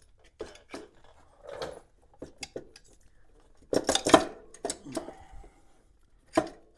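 Metal clinks, taps and knocks of a screwdriver prying at the cylinder head of a Kawasaki KL250 single-cylinder engine and the head being rocked loose on its long bolts. A quick clatter of clinks comes about four seconds in and one sharp clink near the end.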